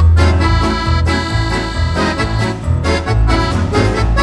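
Instrumental background music: held chords over a bass line that moves from note to note every half second or so.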